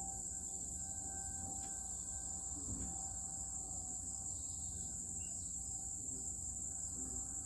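A faint, steady, pitched hum of unknown origin, the strange noise from the sky that the uploader is recording. It fades around the middle and comes back near the end, over a steady high-pitched hiss and a low rumble.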